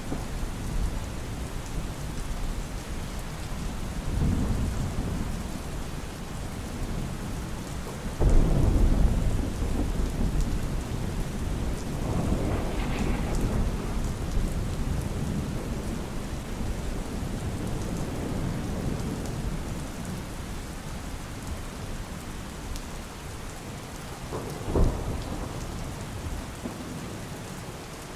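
Steady rain with rumbles of thunder. The loudest thunderclap breaks suddenly about eight seconds in and rolls on for a few seconds, and a shorter sharp crack comes near the end.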